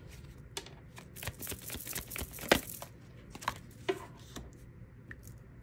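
Tarot cards being handled and dealt onto a wooden tabletop: scattered light taps and flicks of card stock, the sharpest about two and a half seconds in.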